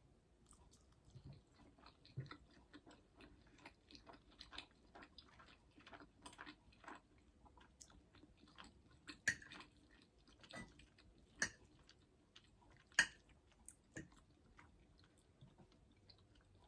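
A person chewing macaroni and cheese close to the microphone: soft, wet mouth clicks and smacks, with a few sharper clicks in the second half.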